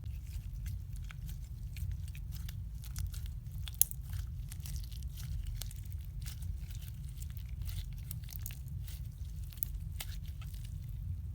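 Slime being handled close up: dense small crackling pops and clicks, with one sharper pop about four seconds in, over a steady low hum.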